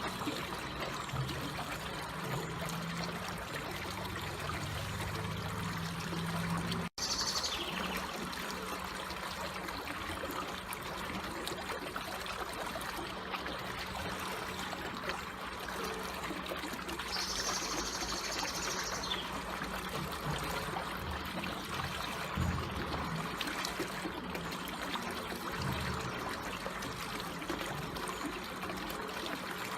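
Water trickling and running in a gentle, steady flow, with a momentary drop-out about seven seconds in.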